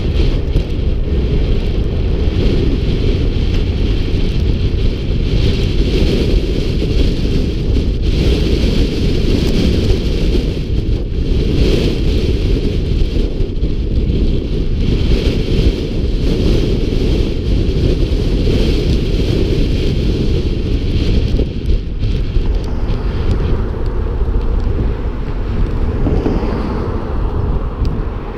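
Wind buffeting the microphone of a camera mounted outside a moving pickup truck: a loud, steady rumble.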